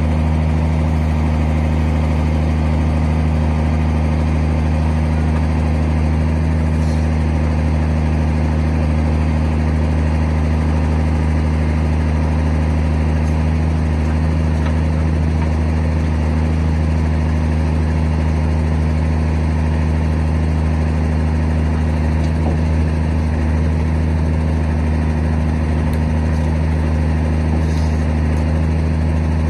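MB-trac tractor's diesel engine running steadily at one constant speed, driving the hydraulics of a trailer-mounted timber crane. A deep, unchanging hum.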